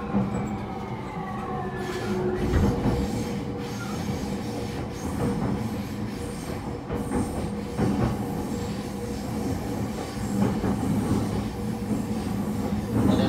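Running noise heard inside the car of an E231-1000 series EMU as it slows. For the first two seconds the Hitachi IGBT-VVVF inverter's tones glide downward under braking. Then the wheels rumble on, with a steady ringing tone and a few knocks over rail joints.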